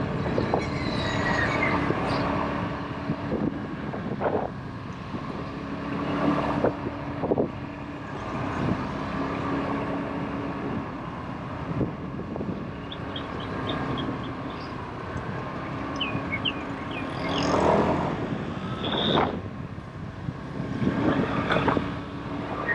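Motorbike engine running steadily at an easy cruising pace, with road noise and wind gusting over the microphone now and then.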